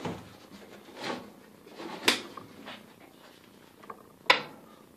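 A sheet of plywood and a Craftsman 10F metal lathe being shifted on a wooden workbench: a few short scrapes and bumps, the loudest a sharp knock about four seconds in.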